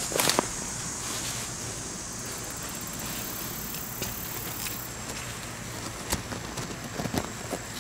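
Tomato plant leaves and stems rustling and brushing as the plants are pushed aside. There is a crackling burst right at the start and a few more brushes near the end, over a steady high hiss.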